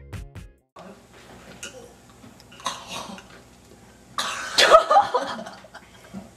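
A boy coughs and sputters harshly about four seconds in while drinking a foul blended mix of condiments, choking on the taste. Fainter splutters come before it.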